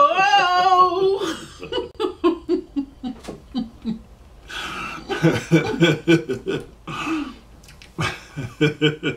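A man and a woman laughing hard together: a high wavering laugh at first, then rhythmic bursts of laughter, about four a second, that die away and break out again twice.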